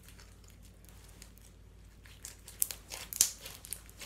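Crinkling and crackling of something handled close to the microphone: a quiet room at first, then from about two seconds in a run of sharp, irregular crackles, loudest a little after three seconds.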